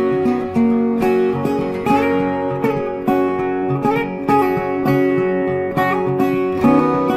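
Background music: acoustic guitar strumming and plucking a gentle tune.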